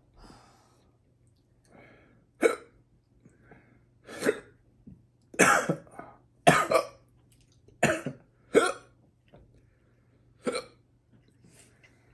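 A man coughing in about seven short, sharp, separate bursts, the loudest around the middle: his reaction to the burn of a chocolate ghost pepper he has just eaten.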